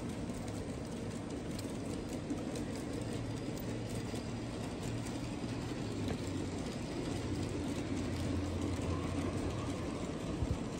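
G-scale model trains running on floor track: a steady rumble of metal wheels on the rails and electric motors, with a low hum and a few faint clicks.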